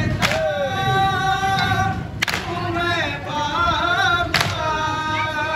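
Men's voices chanting a nauha, a Muharram lament, together and unaccompanied, cut by a sharp stroke of matam (hands beating on chests) about every two seconds, three times.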